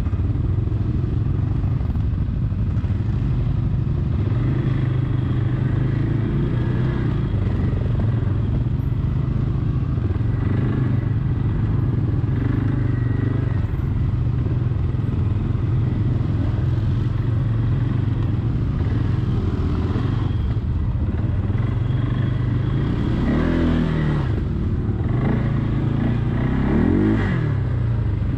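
Quad (ATV) engine running steadily while riding along a trail, its pitch swelling up and back down twice near the end.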